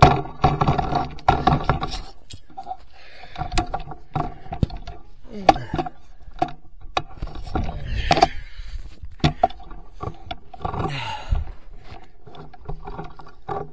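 Handling noise of a rifle with a scope-mounted camera being moved and adjusted: an irregular string of sharp clicks, knocks and scrapes, the loudest right at the start. A few low sounds falling in pitch come in between.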